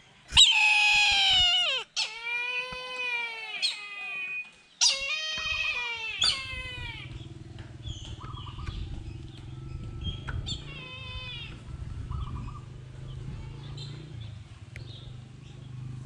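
Brahminy kite calling: three long, wavering, cat-like mewing calls one after another, each sliding down in pitch at the end, then a fainter call about ten seconds in.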